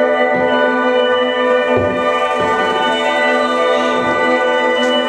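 Live experimental ensemble music: a steady drone of several held pitches with many overtones, with a few low thumps about half a second, two, two and a half and four seconds in.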